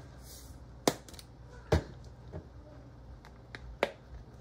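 Sharp clicks and knocks of a salt shaker being handled and set down on the stovetop, about six in all, the loudest a little under two seconds in.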